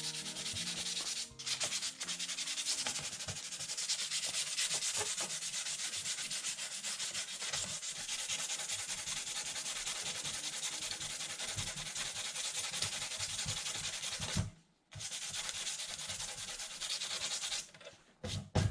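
Sandpaper rubbed steadily back and forth over the painted body of an RC-scale Jeep Cherokee, wearing through the paint for a faded patina. It pauses briefly about a second in and again near fifteen seconds, and stops about a second before the end.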